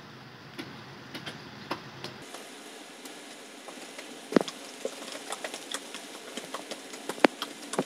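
Wood cooking fire under a wok crackling: irregular sharp pops and crackles over a low hiss, more frequent and louder from about two seconds in.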